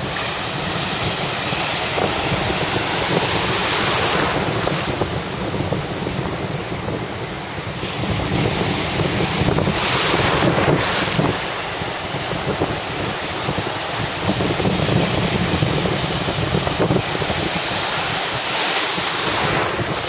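Small waves breaking and washing through the shallows, a continuous rush of surf that swells and eases every few seconds, with wind buffeting the microphone.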